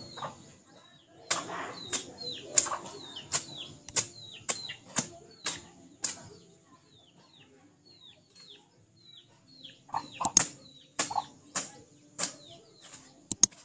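Grass being cut by hand: a series of sharp chops, about one or two a second, that stop for a few seconds in the middle and pick up again near the end. Small birds chirp throughout with short falling notes.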